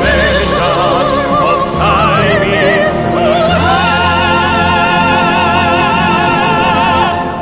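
Operatic singing over an orchestra, the voice in wide vibrato, rising into a long held final note that ends shortly before the close.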